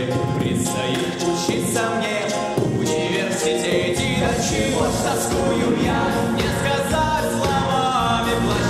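Live pop song: a male lead singer with backing vocals, over an accompaniment with a steady drum beat.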